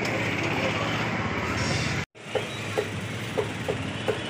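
Steady street background noise with traffic. After a brief cut about halfway through, live chickens give about five short rising calls, roughly one every half second.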